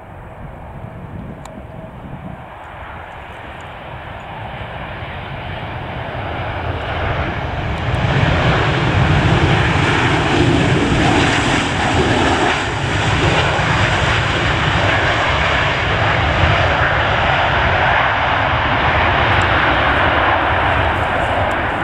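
Boeing 737-800's CFM56 turbofan engines during the landing roll just after touchdown. The engine roar grows louder from about six seconds in and stays loud as the airliner rolls past close by.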